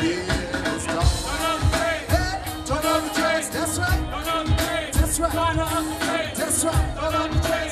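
Live hip-hop band playing through the festival PA, with a vocalist singing over a steady drum beat, heard from within the crowd.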